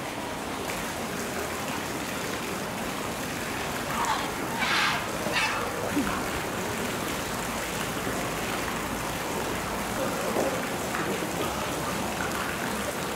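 Steady rush of water, with onlookers' voices over it; a high voice calls out briefly about four seconds in, and again a little later.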